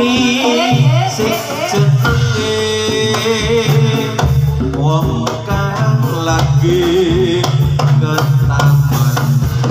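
Live Javanese gamelan music for a jathilan horse dance: kendang hand drums beating a steady pattern under ringing metallophone tones, with a singer's voice.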